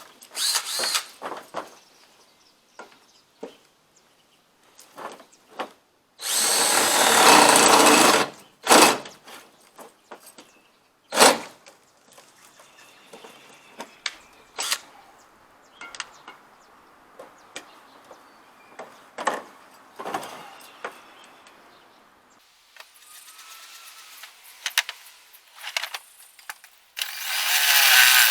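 Power drill boring bolt holes to mount a truck bed crane base: a loud run of about two seconds, a few short bursts, scattered clicks and handling knocks, then another long run near the end.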